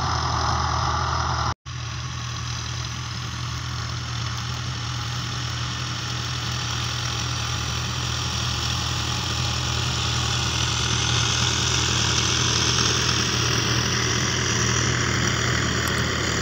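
Diesel farm tractor engine running steadily under load as it pulls a cultivator. The sound cuts out completely for a split second about one and a half seconds in.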